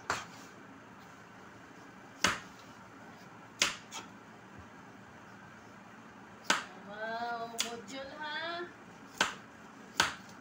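A kitchen knife striking a plastic cutting board as it slices the skin off a squash in downward strokes: about seven sharp knocks, irregularly spaced a second or two apart. A high voice is heard briefly about seven seconds in.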